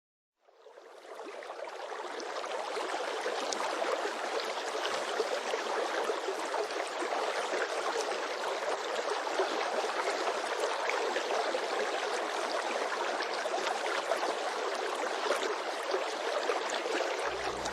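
Flowing stream water, a steady rushing sound that fades in over the first couple of seconds.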